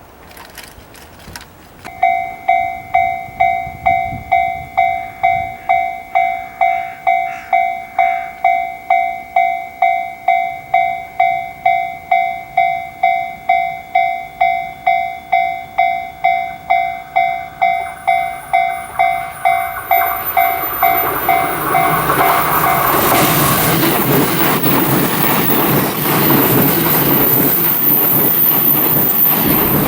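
Japanese level-crossing warning bell dinging steadily about twice a second. From about twenty seconds in, an E353 series limited express train approaches and passes at speed, and its loud rushing wheel-and-rail noise drowns out the bell.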